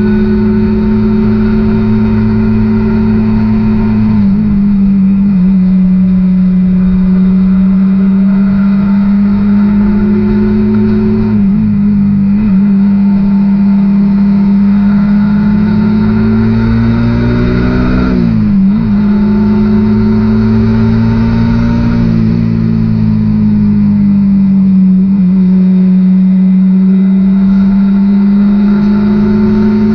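Suzuki GSX-R150's single-cylinder engine running at cruising speed, its pitch drifting slowly up and down with the throttle. About two-thirds of the way through, the pitch drops sharply and comes back up, with a low rumble underneath throughout.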